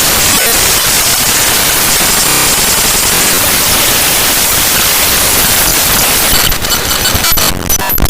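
Raw bytes of a Windows DLL file, Google Drive's drivefsext.dll, played as audio: loud, dense static, with a brief buzzy tone about two and a half seconds in. Near the end it turns choppy, broken by short gaps and thin high tones.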